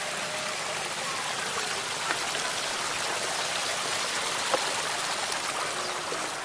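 A small river running, a steady rush of water, with a couple of faint knocks about two and four and a half seconds in.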